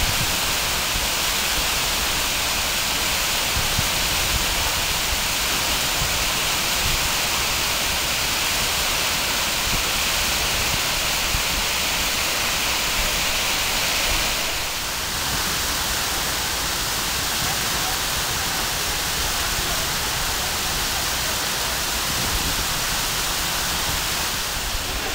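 Waterfall pouring down: a steady rush of falling water whose hiss eases slightly about halfway through.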